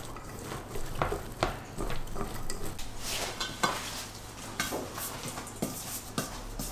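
Stainless steel mixing bowls handled on a wooden table: scattered light clinks and knocks, first as a pork and onion filling is mixed by hand in one bowl, then as a bowl of dough is tipped out onto a floured board.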